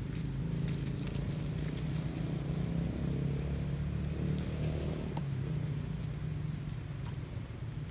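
Steady low hum of a motor running, swelling a little in the middle, with faint scattered clicks over it.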